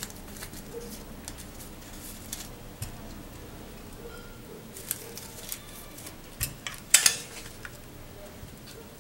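Paper strips rustling and crackling as they are handled and pressed together by hand, with light clicks throughout. About seven seconds in comes a louder, sharper clatter of a few quick clicks.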